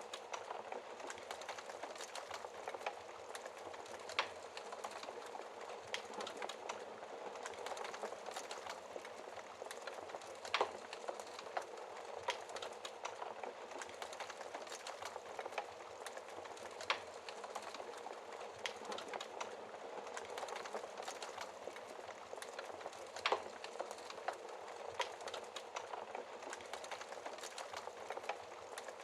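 Wood fire burning in a fireplace, with a steady low crackle and frequent sharp pops, a few of them louder.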